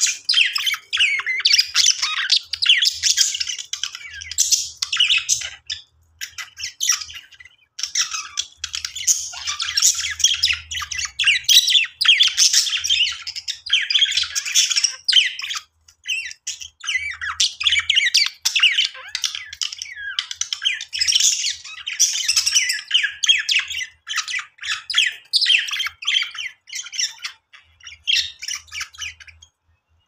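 Budgerigars chattering and warbling: a fast, dense run of squawks, chirps and twittering that stops briefly a few times.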